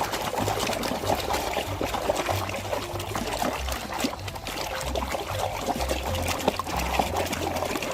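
Water splashing and trickling as muddy toy vehicles are washed by hand in a tub, with many small clicks and knocks throughout.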